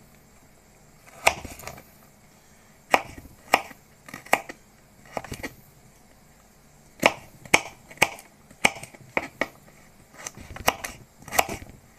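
Kitchen knife dicing a carrot on a plastic cutting board: single, irregular knife strikes a second or more apart, then quicker runs of cuts from about seven seconds in.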